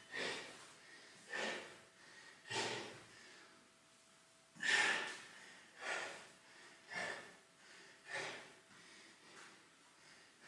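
A man breathing hard and recovering his breath after a high-intensity interval: about seven heavy breaths, roughly one a second, growing weaker toward the end.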